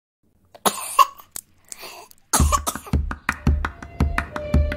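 A person coughing, then music starts about two seconds in: a steady beat of low drum hits with short percussive clicks, and held notes coming in near the end.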